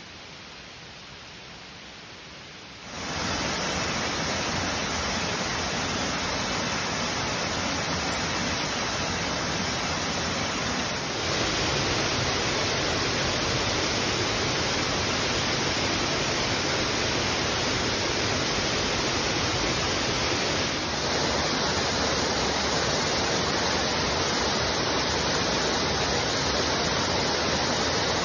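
Waterfall pouring, a steady rush of water noise. It starts softer and jumps abruptly louder about three seconds in, then steps up a little again partway through.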